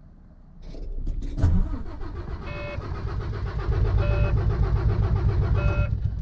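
Diesel engine of a Volvo VNL semi-truck cranking on the starter in an even rhythm for about five seconds without catching. A dashboard warning chime beeps three times. The driver suspects the truck is low on diesel.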